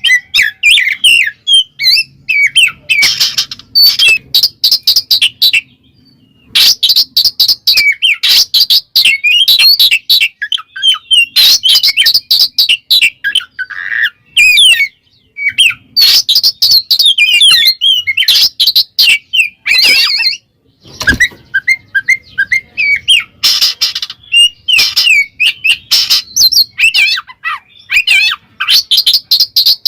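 Oriental magpie-robin (kacer) singing loudly in rapid, varied strings of whistles and chirps, broken by short pauses. It is the open-voiced challenge song that calls out a rival and provokes other magpie-robins.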